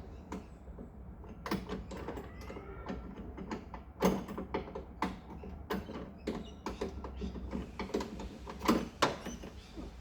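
Irregular clicks, taps and knocks of hand tools and metal parts being worked on a car door's handle and trim by hand, with the loudest knocks about four seconds in and near the end.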